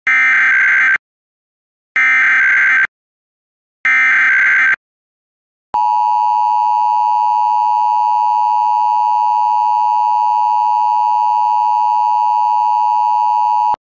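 Emergency Alert System test tones: three one-second bursts of SAME header digital data, a second apart, then the steady two-tone attention signal from about six seconds in. These tones precede a test announcement.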